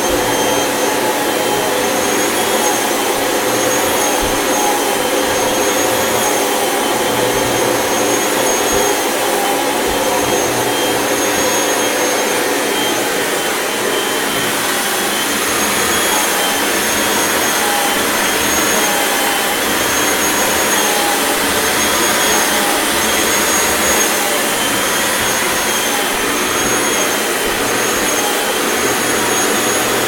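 Kirby vacuum cleaner running steadily, its hose nozzle drawn through a Labrador's coat: a constant rush of air with a high motor whine on top.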